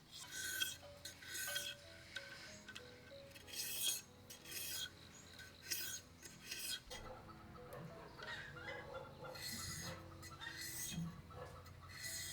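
Bamboo being scraped by hand in repeated strokes, about one a second, becoming denser, continuous scraping about seven seconds in.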